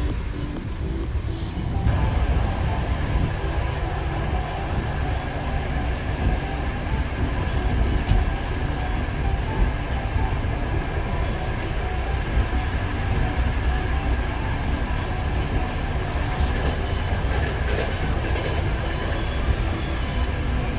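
Moving passenger train heard from inside the carriage: a steady rumble of wheels on the track with a faint steady whine, swelling about two seconds in, and a few short knocks from the rails.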